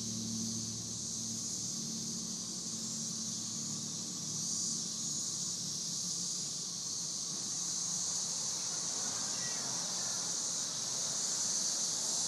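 Dense chorus of periodical cicadas: a steady, high-pitched, hissing drone that never lets up. A low hum underneath fades away in the first couple of seconds.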